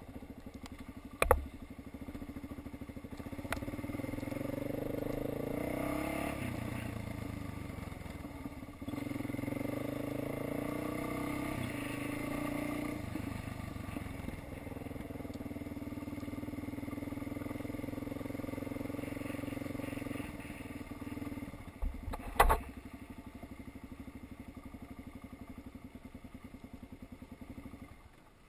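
Dirt bike engine running under way, with the revs rising and falling twice in the first half and then holding steady. Two sharp knocks stand out, about a second in and about 22 seconds in, and the engine sound drops away right at the end.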